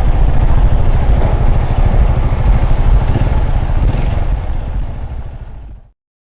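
Honda CG Titan 150's single-cylinder four-stroke engine running through its newly fitted aftermarket exhaust, a deep, rapid pulsing rumble. It fades out over the last couple of seconds and stops about six seconds in.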